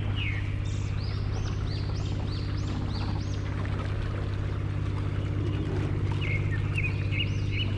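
Boat engine running steadily with a low hum. Birds chirp over it in a quick series of high rising-and-falling calls in the first few seconds, and again near the end.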